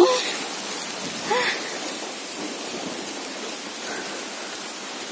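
Steady hiss of falling water, rain and waterfall spray, with two short voice sounds: one right at the start and another about a second and a half in.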